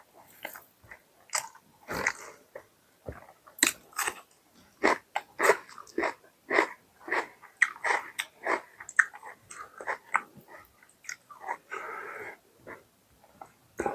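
Close-miked eating: wet chewing and biting of mutton curry with roti, a quick irregular run of smacking, crunchy mouth sounds, several a second.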